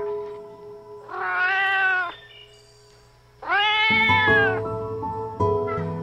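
A domestic cat meowing twice, each meow about a second long and rising then falling in pitch, over background music of steady held notes.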